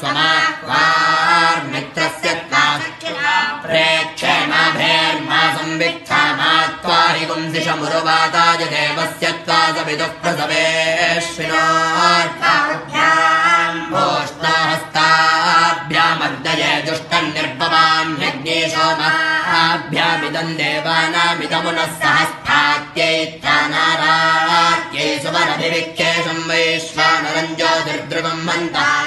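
Boys chanting Vedic Sanskrit mantras together in a continuous, unaccompanied recitation.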